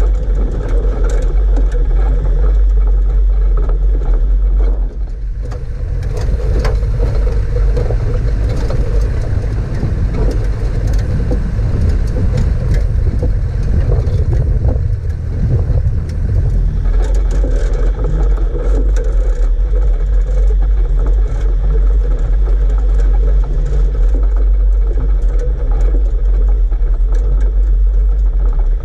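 4WD vehicle driving over a rough lava-rock track: steady engine and tyre rumble with frequent knocks and rattles from the bumps. The engine note changes for about ten seconds in the middle, then settles back.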